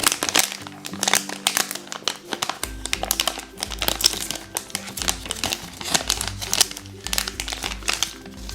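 Plastic blind-bag packaging crinkling and crackling irregularly as it is torn open and handled by hand, over light background music.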